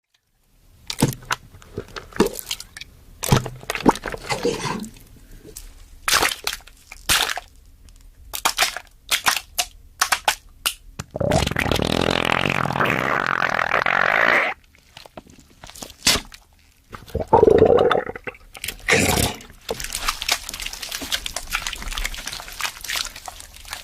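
A string of foley sound effects: many short crunches, snaps and scrapes, with a steady hissing noise for about three seconds in the middle.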